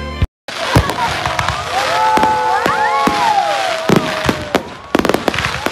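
Aerial fireworks going off: sharp bangs and crackle over a steady hiss, with several long, wavering rising and falling whoops over the bursts through the middle.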